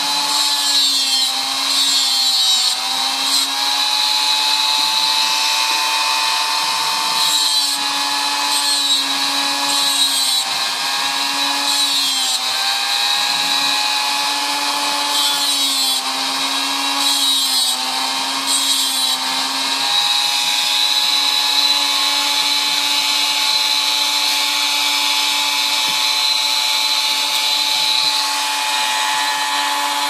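Dremel rotary tool running with a small cut-off disc, grinding into the thin spring steel of a typewriter mainspring to cut a new slot in its shortened end. A steady whine that dips in pitch several times as the disc is pressed into the metal.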